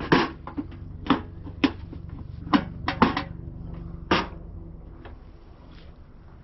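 A run of sharp clicks and clanks, about eight in the first four seconds and then quieter: gear being handled while a portable camp grill is set up.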